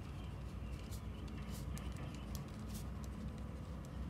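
Pen writing on paper: short, irregular scratchy strokes as figures are written out, over a low steady hum.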